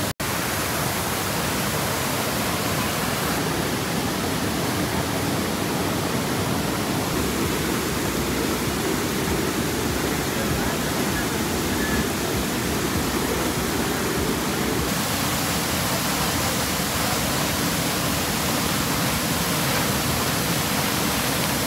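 Waterfall plunging into a pool: a steady, loud rush of falling water, broken by a momentary dropout at the very start.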